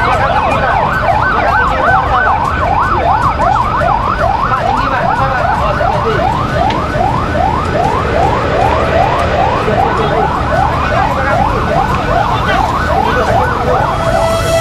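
Electronic siren in a fast yelp, its pitch sweeping up and dropping back about three times a second without a break, over a loud low rumble.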